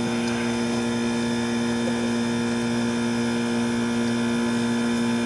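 A steady electrical or machine hum with a strong low tone and a stack of overtones.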